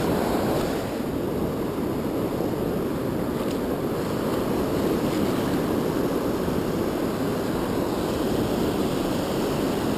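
Ocean surf washing and rushing steadily around the shoreline, with low wind rumble on the microphone.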